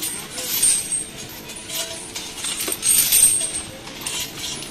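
Irregular metallic clinking and jingling in a few short bursts, the loudest about three seconds in, typical of a captive elephant's chains moving as it shifts about.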